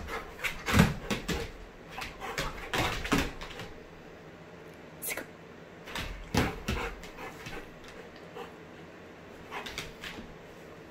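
German Shepherd making short, excited vocal bursts with some whimpering as it plays rough with a hand. The loudest burst comes about a second in, and the rest come irregularly.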